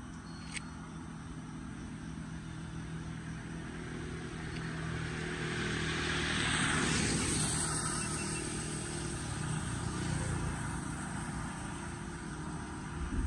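Road traffic on wet asphalt: a vehicle's tyre hiss swells to a peak midway and fades, over a steady low hum of engines.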